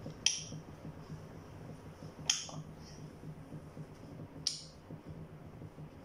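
African grey parrot making sharp clicking sounds, three times about two seconds apart.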